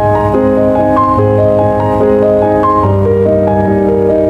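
Background music: slow piano melody of held notes changing pitch about every half second to a second.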